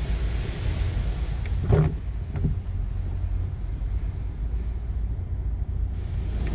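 Water from a car-wash pre-spray arch hitting the car's windscreen and body, heard from inside the cabin as a steady low rush, with two dull knocks about two seconds in.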